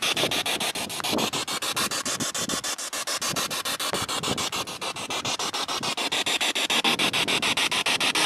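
Spirit box sweeping through radio frequencies: a steady hiss of static chopped into fast, even pulses many times a second.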